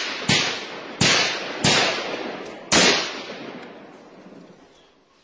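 Gunshots: four single sharp shots spaced roughly a second apart, each followed by a long echo. After the last, nearly three seconds in, the echo fades away.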